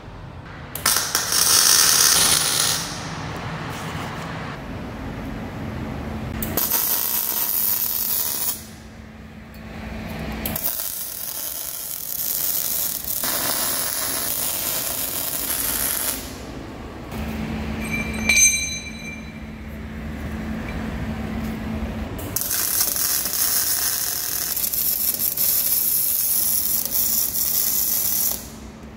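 MIG welding arc of a portable bore welder laying weld inside a worn pivot bore, building it up for re-boring. The arc crackles and hisses in several stretches of a few seconds each, with short breaks between them. A steady low hum runs under parts of it, and a brief high tone sounds about 18 seconds in.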